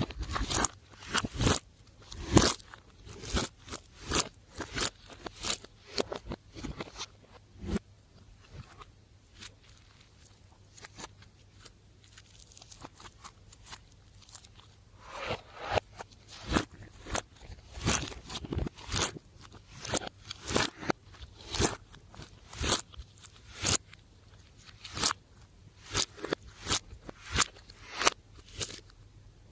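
Slime being squeezed and worked by hand, giving a series of sharp sticky pops and crackles, roughly one a second, with a quieter stretch about a third of the way in.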